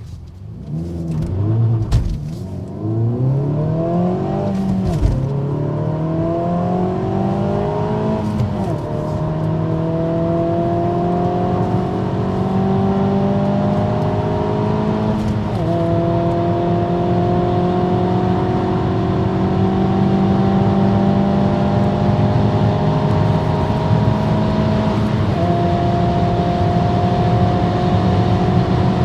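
Kia Pro Cee'd GT's 1.6 turbocharged petrol four-cylinder accelerating hard from a standstill through the gears. The engine note climbs steadily in each gear and drops suddenly at five upshifts, with the later gears lasting longer.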